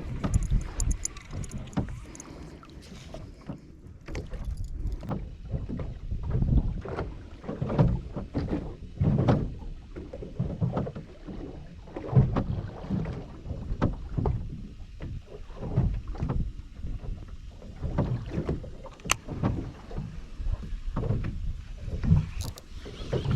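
Water slapping against the hull of a drifting fishing boat: irregular low splashes about every second, with a couple of sharp clicks near the end.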